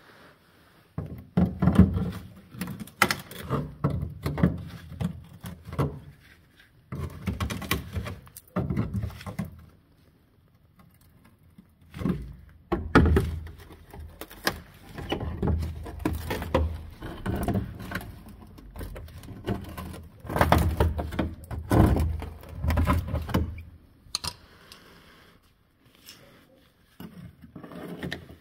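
A screwdriver prodding and scraping the rusted-through underbody of an Opel Kadett Caravan, with irregular bursts of knocks, scrapes and clinks as rotten metal and underseal crack and flake away. The sound comes in several bursts separated by short pauses and dies down near the end.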